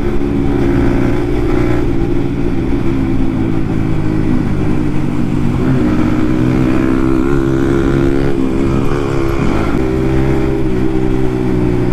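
Yamaha MT-15's single-cylinder engine, fitted with an aftermarket Akrapovic exhaust, running at a steady cruise while the bike is ridden. The engine note holds mostly even, wavering briefly about nine seconds in.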